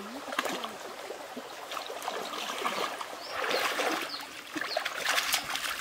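Shallow stream water splashing and sloshing around bare feet wading through it, over a light trickle. The splashing gets louder about three and a half seconds in, with a few sharp splashes near the end.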